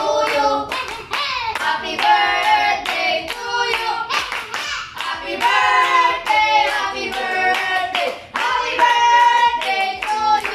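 A group of children and teenagers singing together while clapping along at a steady beat of about three claps a second.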